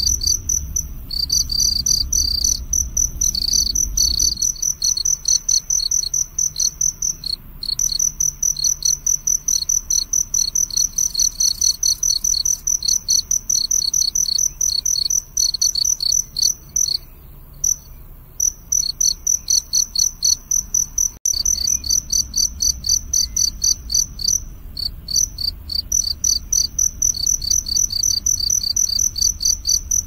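Field cricket chirping: a long run of rapid, high-pitched pulsed chirps at an even pace, breaking off briefly a little past halfway.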